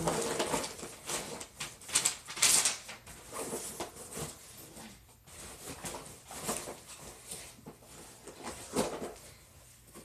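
Rummaging through a box of crayons by hand: irregular rustling and small clicks of crayons and objects knocking together, loudest about two and a half seconds in.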